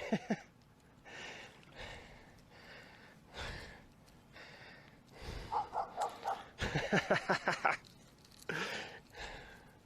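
A man breathing hard and panting in short breaths, about one every second. Near the end comes a quicker run of short voiced breaths.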